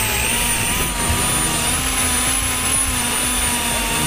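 Electric drill motor running steadily under load, a whine that wavers slightly in pitch as the spinning bit bores into a disc and throws off shavings.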